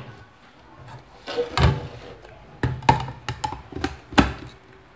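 About five sharp knocks and thunks, unevenly spaced, of a plastic blender jug and lid being set in place on the base, over a faint low hum; the blender motor is not running.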